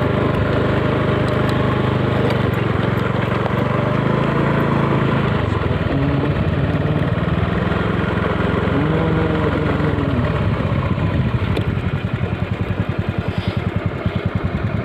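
A small engine running steadily. Its note settles into an even pulsing in the last few seconds.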